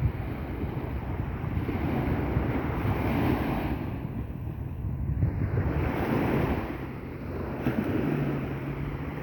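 Sea waves surging and breaking on the shore, swelling and easing every few seconds, with wind buffeting the microphone.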